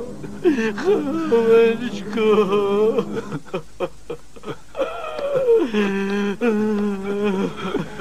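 A man weeping aloud: long drawn-out wailing cries, broken about halfway through by a run of short sobbing breaths, then another long cry that falls in pitch and is held.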